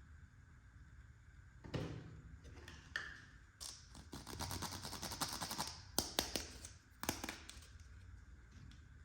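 Small plastic toy pieces and packaging being handled: a few sharp clicks and taps, with a stretch of dense crinkling in the middle and a couple of louder clicks near the end.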